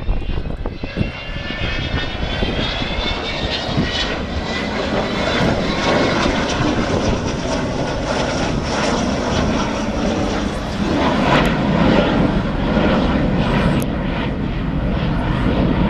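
Avro Vulcan XH558's four Olympus turbojet engines running loudly in flight. A dense jet rumble carries a high whine that rises in pitch over the first few seconds.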